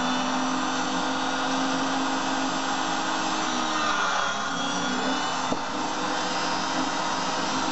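Auto lens groover's electric motor running steadily with a whine, spinning the grooving wheel while a plano lens is touched to it to cut a light test mark. The pitch sags slightly a little past the middle, and there is a single sharp click about five and a half seconds in.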